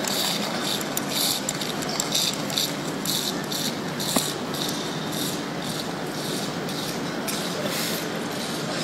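Railway station platform ambience: a steady rushing noise with irregular scratchy rustling, and a single sharp click about four seconds in.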